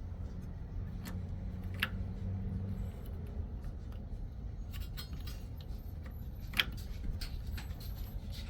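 Scattered light clicks and taps over a low steady hum, the sharpest click about six and a half seconds in.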